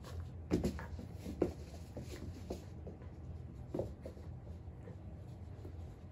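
Miniature schnauzer puppy tussling with a large plush toy on carpet: scuffling and rustling with a few soft thumps, the strongest about half a second and a second and a half in.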